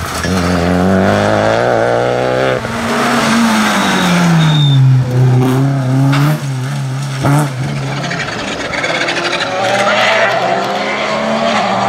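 Rally cars driven flat out, one after another: engines revving hard, rising in pitch, then easing off and dropping, with tyres skidding and gravel spraying.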